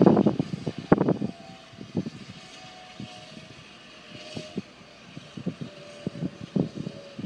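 Santa Fe #3751, a 4-8-4 steam locomotive, working slowly. A rapid cluster of loud knocks and clanks comes in the first second or so, then scattered single knocks over a faint steady whine.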